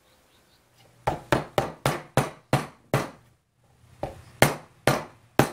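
Small wooden-handled mallet tapping on the edge of a small wooden box frame resting on a workbench. The taps are sharp and come in two runs, about seven quick ones, then a brief pause and four more.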